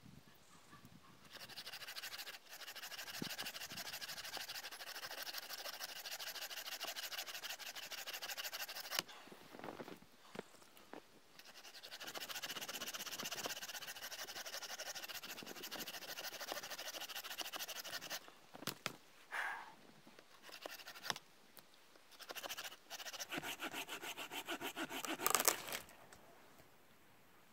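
Folding saw cutting through a dead hardwood branch with quick back-and-forth strokes, in three long bouts with short breaks between, stopping near the end as the piece is cut through.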